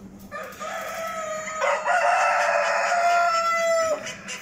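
A rooster crowing: one long crow of about three and a half seconds, growing louder partway through and ending abruptly near the end.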